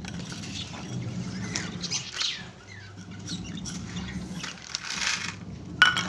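Dry grain and seed rustling as a hand stirs them in a steel bowl, with lovebirds chirping in the background. A sharp knock near the end.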